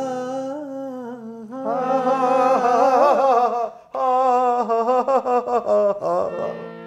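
A man singing long, wavering held notes without clear words, over a steady harmonium drone. The notes climb and waver about two to three seconds in, break off briefly near four seconds, then carry on and fade near the end.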